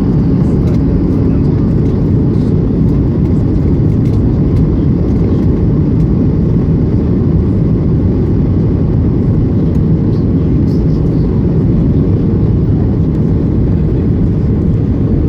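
Passenger aircraft during landing: a loud, steady low rumble of engines and airflow that holds unchanged throughout.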